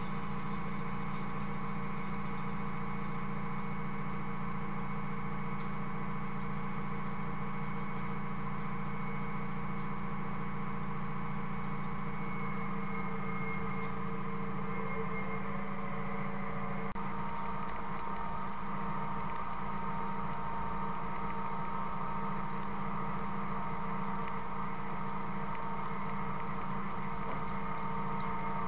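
Steady mechanical drone of a tractor towing a running Buffalo 7700 bale feeder. About halfway through the tone shifts, with a short rising whine and a click, and a new steady whine runs on after it.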